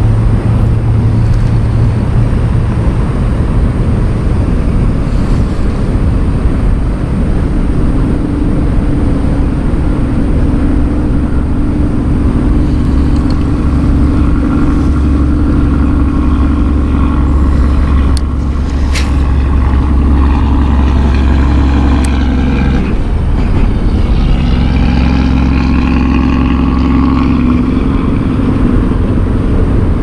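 Road traffic crossing a highway bridge: a steady low rumble, with vehicles passing whose engine and tyre noise swells and fades, one from about halfway in and another near the end. A few sharp clicks sound a little past the middle.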